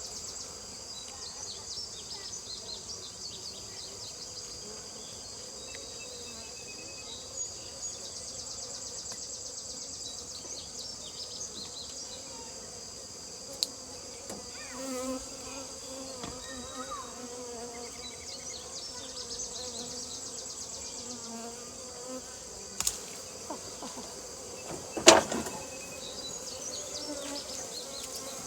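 Honeybees buzzing around an opened comb, over a steady high-pitched insect drone. A few sharp clicks or knocks cut through, the loudest about 25 seconds in.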